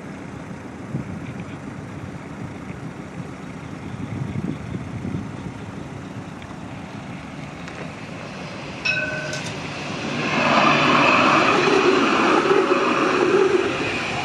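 Alstom Citadis tram approaching and passing close by on ballasted track, its wheels and running gear swelling to the loudest about ten seconds in and holding there for several seconds. About nine seconds in, a single short ringing tone is heard.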